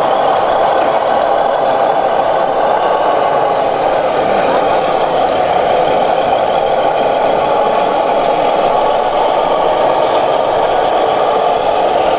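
Steady truck engine running sound from a radio-controlled Mercedes-Benz flatbed truck model as it drives slowly.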